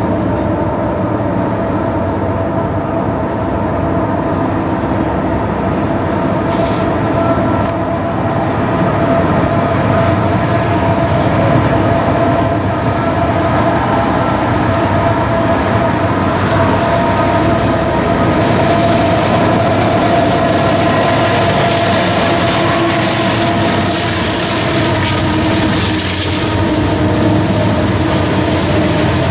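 Union Pacific diesel locomotives heading a loaded coal train approach and pass with a steady engine drone. Loaded coal hopper cars then roll by, and the hiss of steel wheels on the rails builds in the second half.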